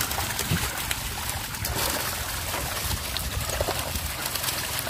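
Water splashing and trickling as live common carp thrash in a net and are scooped up in a plastic basket, water running back out through the basket.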